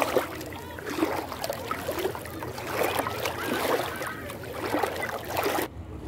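Shallow sea water lapping and splashing close to the microphone: a steady wash with many small splashes. Near the end it changes abruptly to a quieter, duller wash.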